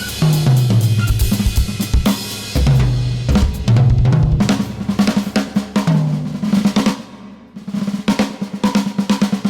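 Drum kit played in free improvisation: fast snare rolls and rapid strokes on low-pitched toms and bass drum. The playing thins out about seven seconds in, then picks up again.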